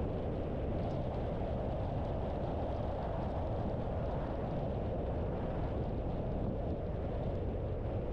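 Steady road noise of a car driving: an even rumble of tyres and engine with no distinct events.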